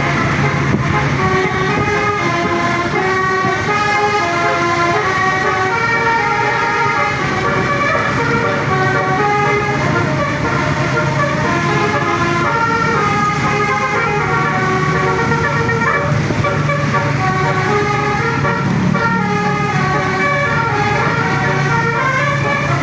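Bus 'telolet basuri' multi-tone horn playing a running melody of short stepped notes, with a steady low hum underneath.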